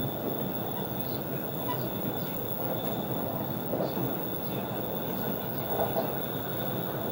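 Electric commuter train running at speed, heard from inside the carriage: a steady rolling noise of wheels on track.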